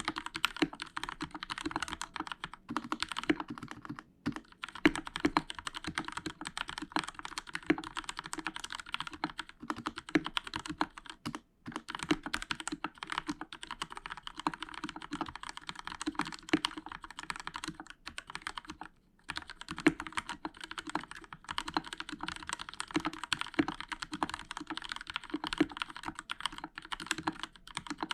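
Continuous fast typing on a Royal Kludge RK61 mechanical keyboard with linear Outemu Red switches, foam under the PCB and stabilizers lubed with Krytox 206. Dense key clacks with brief pauses about four, eleven and nineteen seconds in.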